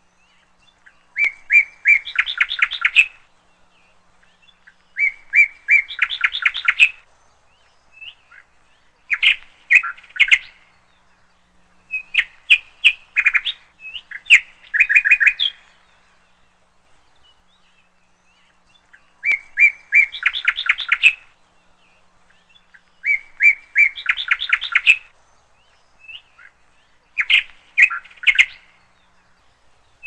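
Small bird singing repeated phrases of rapid, sharp high-pitched chirps, each phrase one to two seconds long, about eight times with pauses of a few seconds between them. The notes are far too high for the low coo of a dove.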